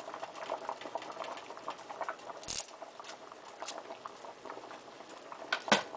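Pot of chicken soup with pasta boiling, a steady run of small bubbling pops. A sharper click sounds about two and a half seconds in and a louder one near the end.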